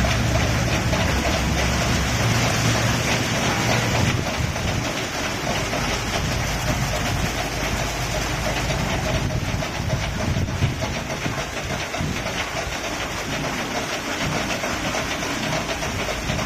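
Automatic rollover car wash machine running over a car: a steady rush of water spray and washing machinery over a low motor hum. The hum is strongest for the first few seconds and then eases.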